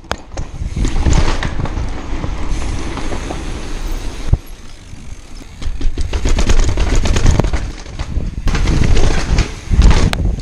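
Mountain bike ridden fast downhill over brick paving and steps: tyre rumble with chain and frame rattle and sharp knocks from bumps and landings, loudest in two stretches in the second half.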